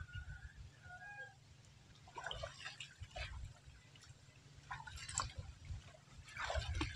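Pond water splashing and dripping as water lily stems are pulled up and gathered by someone wading in shallow water: a few short splashes and drips spread through, over a low steady rumble.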